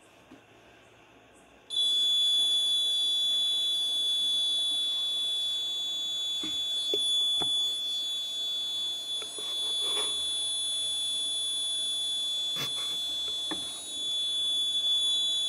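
Piezo buzzer on an alcohol-detector circuit board sounding one continuous high alarm tone, starting suddenly about two seconds in. It is the alarm for alcohol detected, which sounds while the board locks the engine and sends an SMS alert.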